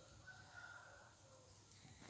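Near silence: room tone with a faint thin high whistle.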